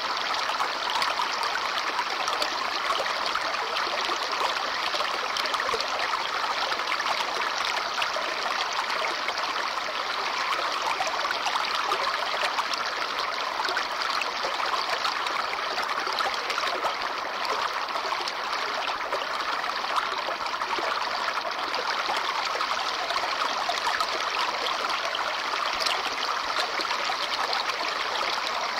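Babbling brook: shallow stream water trickling and bubbling over stones, steady and unbroken.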